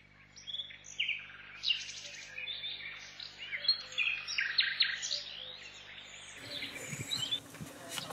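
Small birds chirping, many short high calls and trills overlapping. About six seconds in, a steady outdoor hiss joins them.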